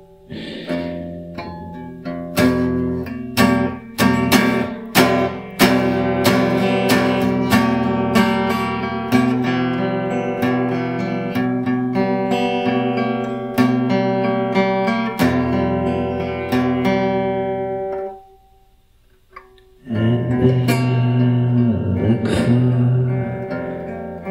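Acoustic guitar strumming chords of a blues tune, each chord struck sharply. The playing drops out for about two seconds near the end, then comes back in.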